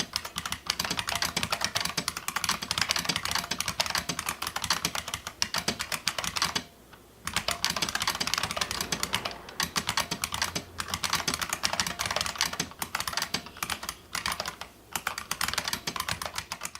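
Fast, continuous typing on an IBM Model M Space Saving Keyboard, its buckling-spring keys clicking, the keyboard bolt-modded. The typing stops for about half a second near the middle, with a few shorter lulls later.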